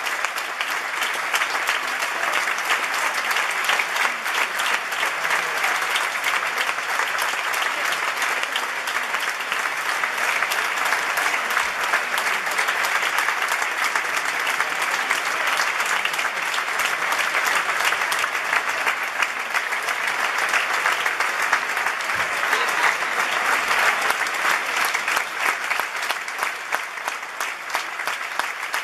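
Large audience applauding steadily, a dense, even clapping that does not let up.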